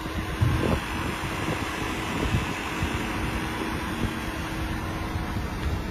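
A steady mechanical hum, like a fan or air-conditioning unit, under wind buffeting the microphone, with a low thump about half a second in.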